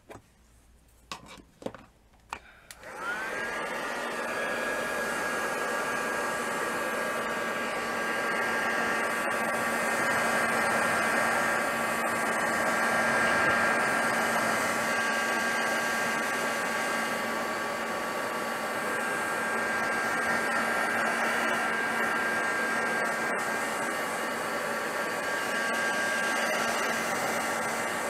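A few light handling clicks, then about three seconds in a small handheld hot-air blower switches on. Its motor spins up with a rising whine and settles into a steady whine over a rush of air, drying a freshly brushed coat of glue.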